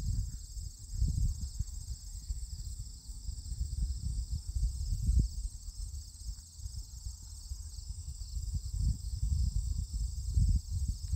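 Steady high chirring of an insect chorus, with an uneven low rumble of wind buffeting the microphone that swells and fades throughout.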